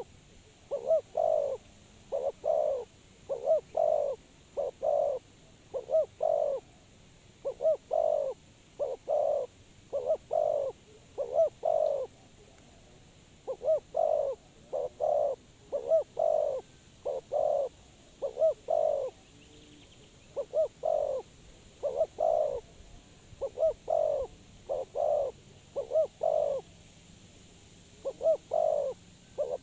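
Spotted dove cooing over and over in phrases of two or three short notes, each phrase followed by a short pause, with a longer break about twelve seconds in.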